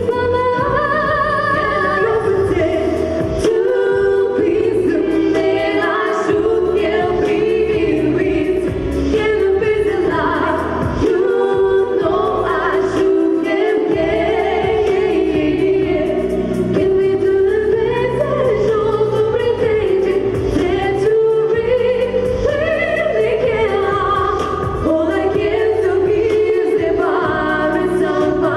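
Girls' vocal duet singing a song over musical accompaniment.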